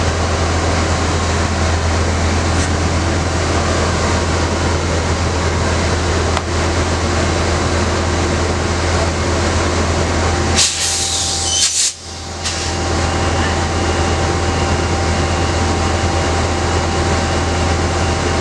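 Stationary diesel passenger locomotive idling at close range: a steady low engine drone under a constant hiss. About ten and a half seconds in comes a loud burst of air hiss lasting about a second and a half, after which a faint steady whine joins the idle.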